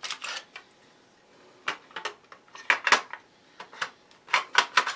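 Mossberg 500 pump shotgun barrel being fitted onto the receiver and magazine tube: a series of short metal-on-metal clicks and knocks in small clusters.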